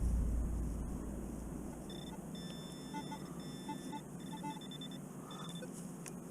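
Metal detector pinpointer beeping in short, high-pitched tones, stopping and starting in irregular runs while it is probed for a target in loose dirt.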